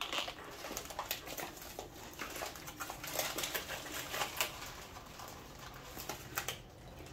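Pepperidge Farm Gingerman cookie packaging rustling and crinkling as a hand reaches into the bag, in irregular crackles.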